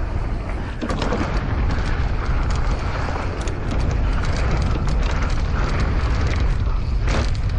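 Mountain bike riding fast down a dirt trail: steady wind rumble on the action camera's microphone, with the tyres on dirt and the bike rattling and clicking over bumps throughout.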